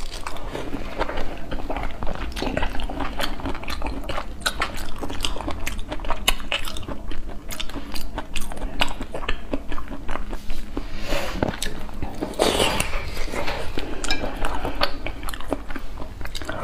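Close-miked eating of whole prawns in chili oil: shells being peeled and cracked, lips sucking the meat from the shells, and wet chewing, in a dense run of irregular small clicks and smacks.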